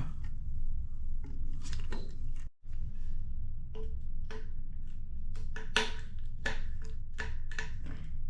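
Parts of a monitor stand being handled and fitted together: a string of irregular clicks and knocks over a steady low hum, with the sound cutting out briefly about two and a half seconds in.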